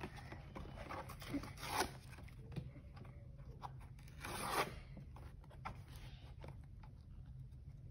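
Toy packaging being pulled open, cardboard and clear plastic rustling and tearing in a few short rips, the longest about four and a half seconds in, with faint scattered handling clicks in between.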